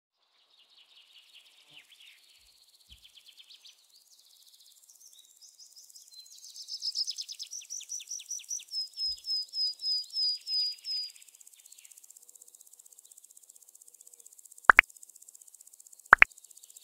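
Birdsong: high chirps and rapid trills that build up in the middle into a run of evenly repeated notes, followed by two sharp clicks near the end.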